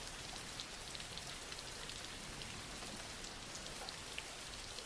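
Steady, soft rain falling, with faint scattered drop ticks.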